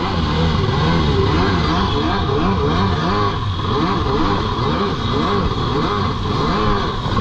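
Jet ski engine revving up and down over and over, its pitch rising and falling two or three times a second, as on a stand-up ski being ridden hard.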